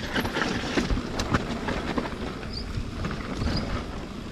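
A mountain bike rolling down a rough dirt trail: steady tyre noise with irregular clicks, knocks and rattles from the chain and frame.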